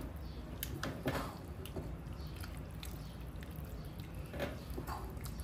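A spoon stirring a thick, creamy cheese sauce in a pan, with wet squishing and scattered clicks of the spoon against the pan. A steady low hum runs underneath.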